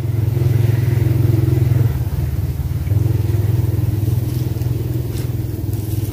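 An engine running steadily with a low, even drone, easing off briefly about two seconds in and then picking up again.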